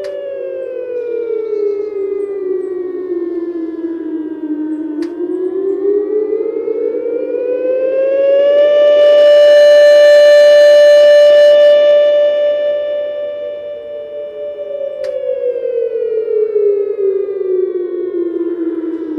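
H.O.R Super Sirex siren sounding a wail. Its tone falls to a low pitch over about five seconds, then climbs back up. It holds high and at its loudest for about six seconds, then falls again. There is a sharp click at each turn in pitch, about five and fifteen seconds in.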